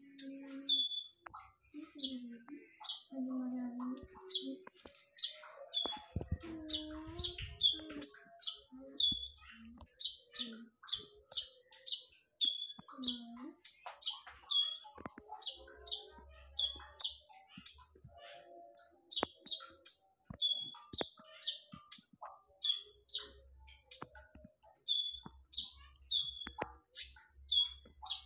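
Kolibri ninja sunbird (konin) calling in a fast, unbroken series of sharp, high chirps, about two to three a second, described as sharp and loud. Lower-pitched gliding calls sound underneath in the first half.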